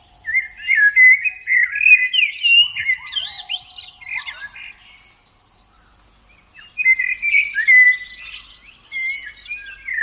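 A songbird singing in two bouts of quick, warbled phrases of notes that slide up and down, with a quieter gap of about two seconds between them. A steady, thin, high-pitched whine runs behind the song from about three seconds in.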